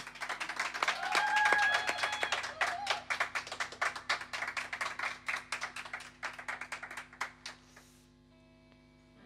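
A small group of people clapping, with a short cheer about a second in, right after a song ends; the claps thin out and stop about seven and a half seconds in, over a faint steady amplifier hum.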